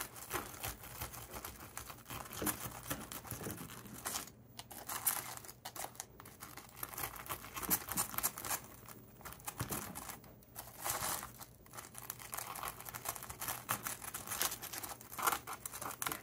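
Serrated knife sawing through the crunchy breadcrumb crust of a Korean rice hot dog, an irregular stream of crackling crunches with brief pauses about four and ten seconds in.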